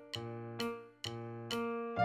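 Background music: a light keyboard tune, notes struck about twice a second.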